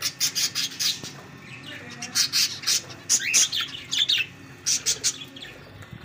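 Aviary of budgerigars and cockatiels chirping: quick runs of short, high chirps, some sliding upward, with brief pauses between runs.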